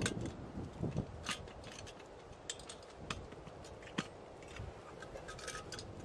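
Small twigs crackling and popping as they burn in a metal twig stove, in irregular sharp ticks, over low wind rumble on the microphone.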